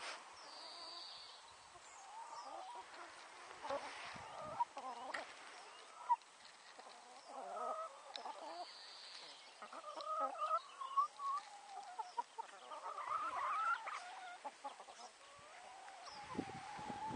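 A flock of chickens clucking, many short calls coming on and off, busiest a little past the middle.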